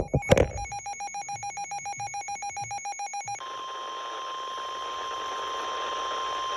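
Two sharp clicks, then rapid electronic beeping, about eight beeps a second, for about three seconds. It gives way to the steady 1050 Hz NOAA Weather Radio warning alarm tone over radio hiss, the signal that a warning message is about to follow.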